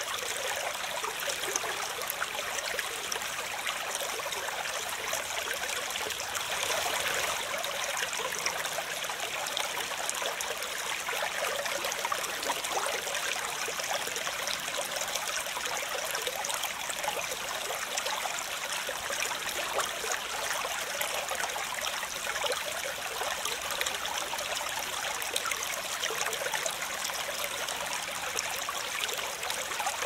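Rushing water of a fast stream: a steady, even splashing hiss with many fine crackles and little low rumble.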